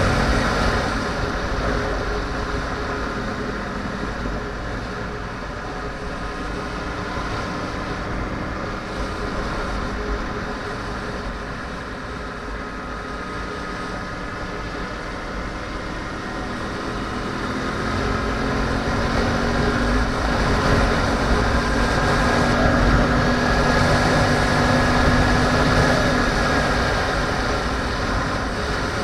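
2010 Yamaha R1's inline-four engine running at road speed, with steady wind rush. Its note falls off in the first few seconds, holds, then rises and grows louder from about two thirds of the way through as the revs climb.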